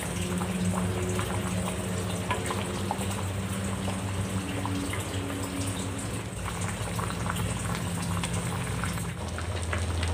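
Fish-head curry simmering in a wok, with small bubbling pops and a wooden spatula stirring through it, over a low steady hum.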